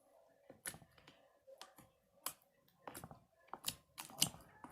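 Slime with warm water mixed into it being kneaded and squeezed by hand, giving irregular sharp clicks and pops, more frequent near the end.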